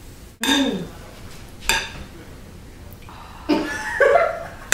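Brief non-word voice sounds, a short murmur falling in pitch and then cough- or hum-like sounds near the end, with a single sharp knock in between.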